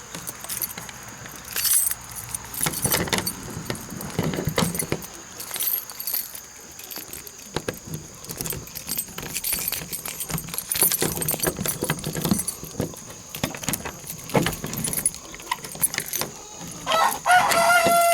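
A ring of keys jangling, with irregular metal clicks and rattles, as a coop lock is worked open. Near the end comes a short, high, pitched squeal.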